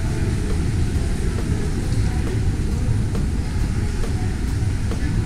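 Loud, steady low rumble with a few faint ticks on top.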